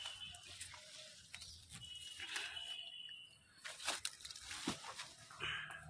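Rustling and crunching of leaves, twigs and undergrowth being pushed through, with scattered small snaps and clicks.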